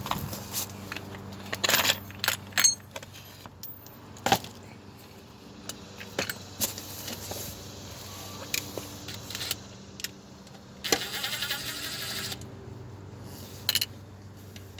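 Metal hand tools clinking and clicking on the 10 mm bolts of a Nissan Altima's CVT transmission pan as they are undone. Scattered sharp clinks are followed by a rapid run of clicks lasting about a second and a half near the end.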